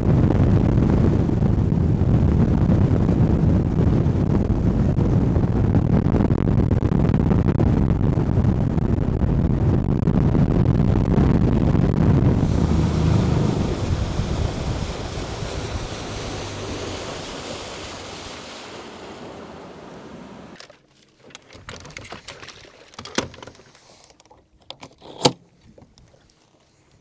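A Ranger RT198P aluminum bass boat running across the river under outboard power, with wind and rushing water. The rumble fades as the boat slows from about twelve seconds in, then stops suddenly about twenty seconds in. A few sharp knocks on the deck follow.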